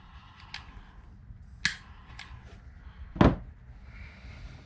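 A few sharp clicks and one louder knock about three seconds in: handling noise from the small portable blowtorch and the wire being soldered.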